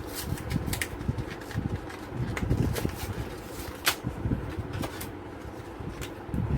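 Scattered small clicks and light knocks of computer parts being handled, with irregular low thuds as things are set down and moved.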